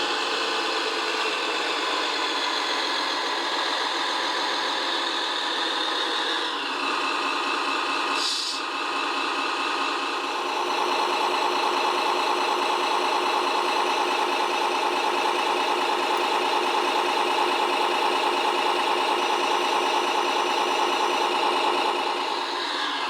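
Electric motors and gear drives of remote-control model construction machines whining steadily. The pitch shifts about six seconds in, there is a short hiss around eight seconds, and the whine grows louder from about ten seconds in.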